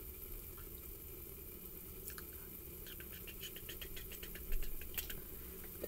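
Instant noodles cooking in hot water under a glass lid, a steady low simmer, with a quick run of about ten light ticks in the middle and a soft knock shortly after.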